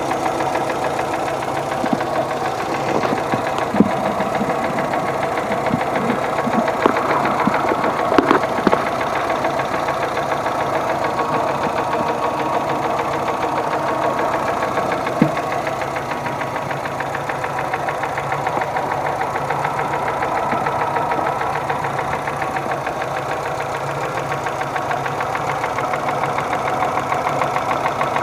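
Engine running steadily with a rhythmic knock coming from inside it, plus a few sharper clicks in the first half.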